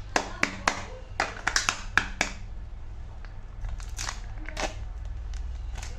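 Kinder Joy egg packaging crinkling and crackling as it is opened: a quick run of sharp crackles in the first two seconds, then a few scattered clicks.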